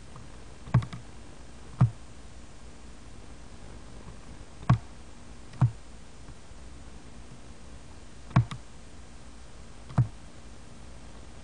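Computer mouse buttons clicking: six separate sharp clicks at irregular intervals one to three seconds apart.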